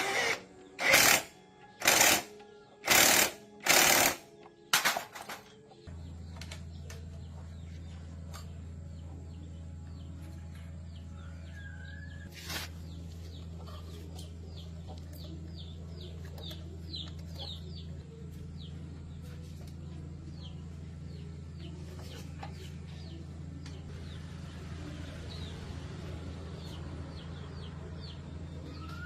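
Five loud, short bursts of a workshop tool about a second apart. From about six seconds in, a steady low machine hum takes over, with chickens clucking in the background.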